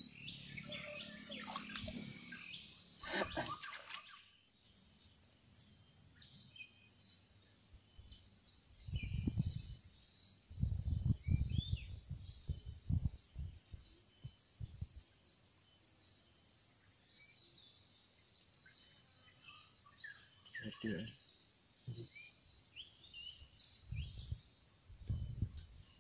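Rural outdoor ambience: a steady high insect drone with scattered short bird chirps. Low buffeting rumbles come in gusts about nine to thirteen seconds in and again near the end.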